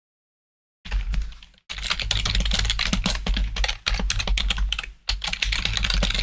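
Fast typing on a computer keyboard: rapid key clicks in several bursts with short pauses, starting about a second in, over a low hum.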